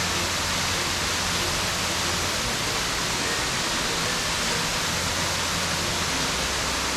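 Steady, even rush of the 80 ft Melincwrt waterfall, its water running lower than usual after a dry spell.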